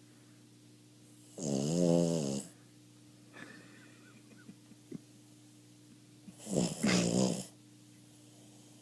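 Boston Terrier snoring while half asleep: two loud snores about five seconds apart, each lasting about a second.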